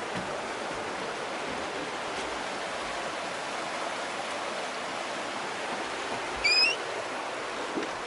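Steady rush of a river running over rocky rapids, with one short rising bird call a little over six seconds in.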